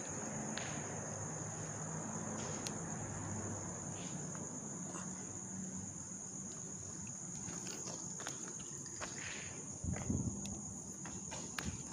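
Crickets trilling steadily as one constant high-pitched drone, over a low background hum, with scattered faint clicks and a brief low thump about ten seconds in.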